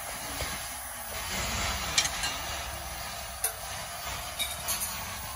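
Water poured over a hot ram dao blade hissing into steam as the steel is water-tempered, a steady hiss broken by a few sharp clicks and crackles, the loudest about two seconds in.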